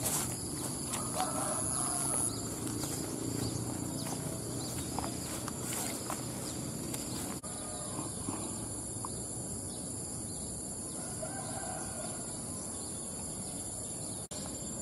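Rural outdoor ambience: a steady high-pitched drone of insects such as crickets, with a couple of faint animal calls. For the first several seconds, footsteps crunch on the track's ballast stones.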